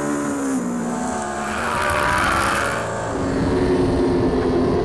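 Racing superbike engines heard from onboard cameras, running hard in a close pack with wind rush. The engine note drops about half a second in, and a different engine note takes over about three seconds in.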